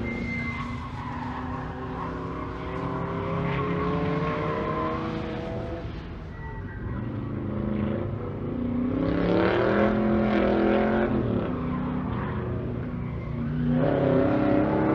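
Chevrolet Corvette race car engine accelerating on track, its pitch climbing through the revs and dropping back at each gear change or lift.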